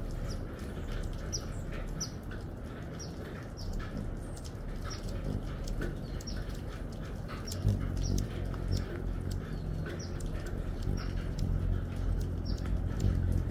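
Hummingbirds at a feeder giving short, sharp chip calls, about one or two a second, over a steady hiss. About eight seconds in a low whirring hum comes in and holds, as a hummingbird flies close.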